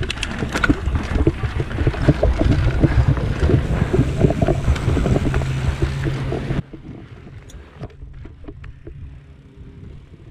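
Mountain bike riding fast down a dirt singletrack: tyre roar on dirt and leaves, rattling of the bike, and wind buffeting the microphone. About six and a half seconds in it drops abruptly to much quieter rolling.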